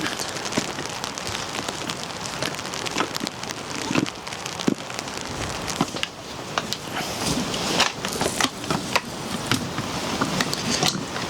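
Steady rain, with many individual drops ticking sharply on a nearby surface.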